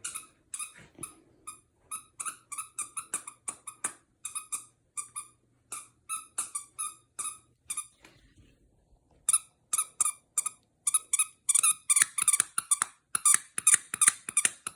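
A dog chewing a squeaky toy, squeezing out short, high squeaks over and over, a few a second. The squeaks pause briefly about eight seconds in, then come faster and louder.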